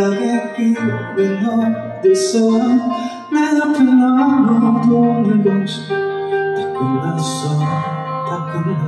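Live band music with guitar prominent, playing a song's instrumental lead-in before the vocals, with short splashes of high hiss every second or two.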